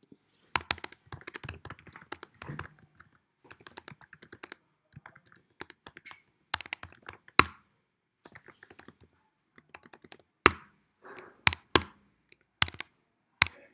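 Typing on a computer keyboard: irregular runs of keystrokes, with several sharper, louder key strikes in the second half.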